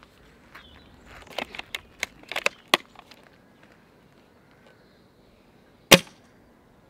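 Novritsch SSG96 spring-powered bolt-action airsoft sniper rifle being shot: a run of light clicks, then a single sharp crack near the end, the loudest sound.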